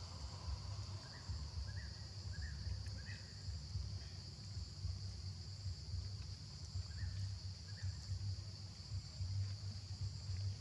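Outdoor ambience: a steady high drone of insects over a low, fluctuating rumble, with a few short faint chirps between about one and three seconds in and again around seven seconds.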